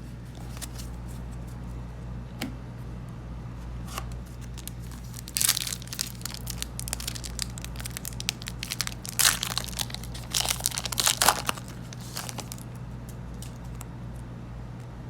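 Foil trading-card booster pack wrapper crinkling and being torn open, with cards handled. The loudest crinkling comes in a burst about five and a half seconds in and again from about nine to eleven seconds.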